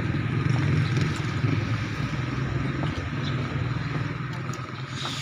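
A vehicle engine running steadily, a dense low rumble that eases off slightly near the end.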